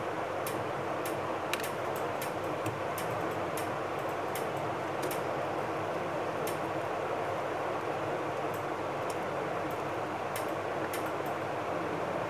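Steady whirring of a running indoor air conditioner, with scattered faint clicks.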